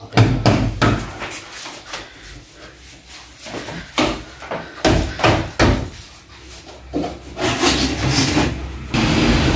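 Plywood wall cabinet knocking and scraping against the wall and ceiling while it is lifted and pushed into position: an irregular string of wooden knocks and thumps. A steady noise sets in just before the end.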